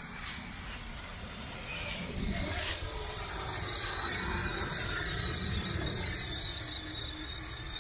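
Electric RC scale crawler driving, its motor and gear drivetrain whining, with a thin steady high whine setting in about three seconds in over a low rumble, and one sharp click shortly before.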